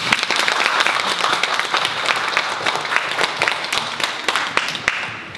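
Audience applauding: dense clapping that thins out and dies away about five seconds in.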